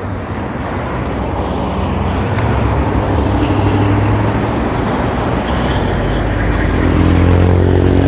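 Wind and road noise rushing over a neck-hung phone's microphone while riding a bicycle along a street, with a motor vehicle's engine hum building up near the end.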